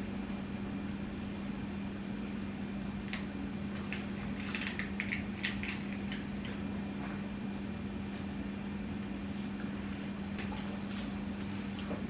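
Steady low mechanical hum holding one pitch, with scattered light clicks and ticks over it, most of them a few seconds in.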